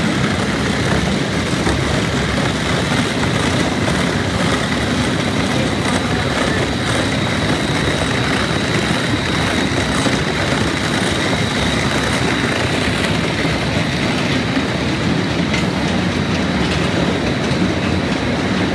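Innovatech P3200 four-headed planetary floor grinder running steadily, its metal-bond diamonds grinding a leftover tile mortar bed off concrete. A faint high whine runs through the steady grinding noise.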